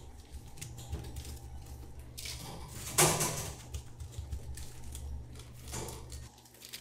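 Dry rustling crunch of small dried shrimp as a hand presses a glazed puffed rice cake into a tray of them, loudest in one sudden burst about three seconds in, over a steady low hum that stops near the end.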